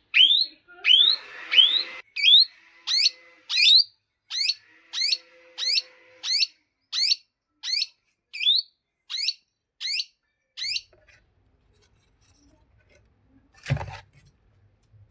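Plum-headed parakeet calling, a run of about sixteen loud rising whistles at an even pace of roughly three every two seconds, then falling quiet. A single thump near the end.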